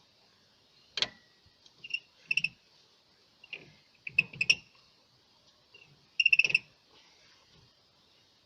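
G-clamp screw being slowly wound in against an old pad, pushing the rear brake caliper piston back. It gives short, squeaky chirps and clicks in separate groups, the longest and loudest group near the end.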